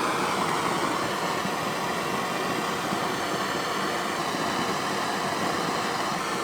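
Handheld gas torch burning with a steady rushing hiss, lit with a sharp click just before, heating a seized aluminium A/C line fitting to free it.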